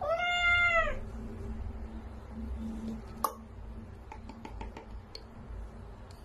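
A flat-faced kitten meows once, a drawn-out call of about one second. About three seconds in there is a single sharp click, followed by a few faint ticks.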